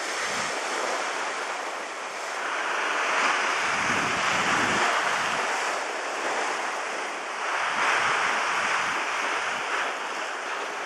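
Sea waves washing with a steady hiss, with wind buffeting the microphone in gusts, the strongest about four seconds in and again near the end.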